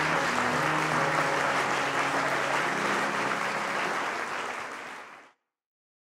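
Audience applauding, with a few faint held musical notes underneath; the applause fades and cuts off a little over five seconds in.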